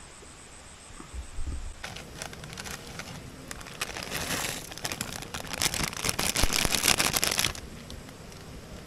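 Close crinkling and crackling of handled material, starting about two seconds in, densest and loudest toward the end, then stopping sharply.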